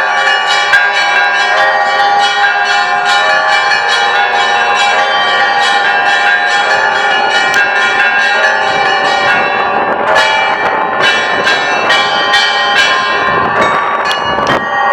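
Church bells of the Great Lavra Bell Tower ringing together: several bells of different pitch struck in quick succession, several strikes a second, their tones overlapping. A rush of noise sits under the bells near the end.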